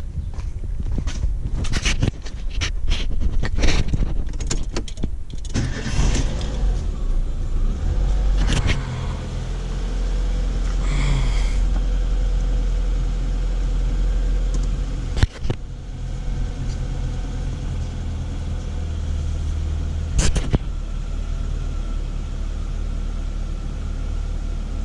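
Daewoo Sens engine being started as a test after a new camshaft position sensor has been fitted. A few seconds of clicks and rattles come first, then the engine catches about five seconds in and runs at a steady idle, with a couple of sharp clicks later.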